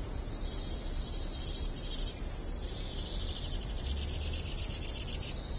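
Insects trilling: a high, steady-pitched, rapidly pulsing trill that carries on without a break, over a low outdoor rumble.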